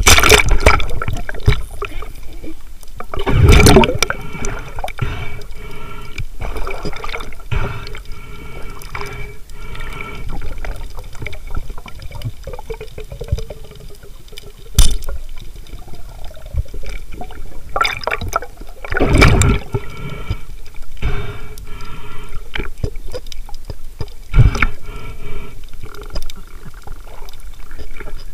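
Water rushing and bubbling around a diver's camera as it goes under the surface, heard muffled underwater, with louder surges of rushing water a few seconds in and again about two-thirds of the way through. A single sharp crack comes about halfway through.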